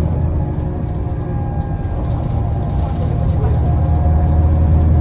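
Heuliez GX 427 articulated bus's Euro 5 diesel engine idling at a standstill with its ventilation fan running: a steady low hum.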